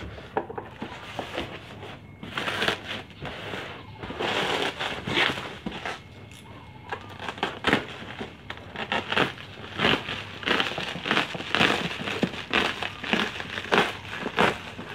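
Bubble wrap and brown packing tape being pulled and peeled off a foam shipping box by hand. It makes a run of irregular crinkling and crackling that gets busier in the second half.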